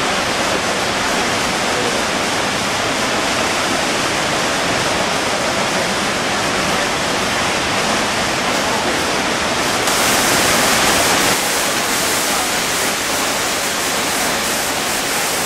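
Iguazu Falls: heavy water pouring over the falls into the river below, a loud, steady rushing noise. About ten seconds in it turns brighter and hissier.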